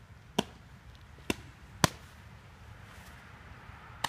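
A softball smacking into leather gloves: four sharp pops, the loudest near the middle.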